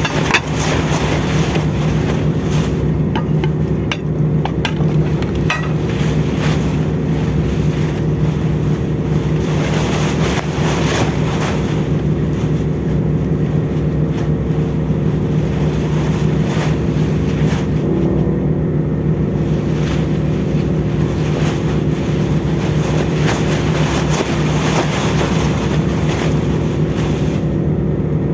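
Steady drone of a ship's engines and machinery, with wind buffeting the microphone.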